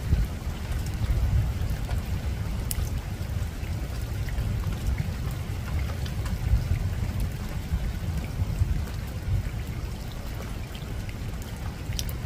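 Steady rain falling on a rooftop, with scattered sharp drop ticks over a continuous deep low rumble.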